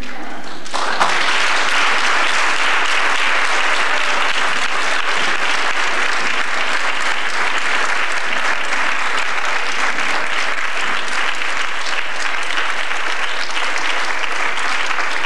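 A large audience applauding, the clapping swelling sharply about a second in and then holding steady.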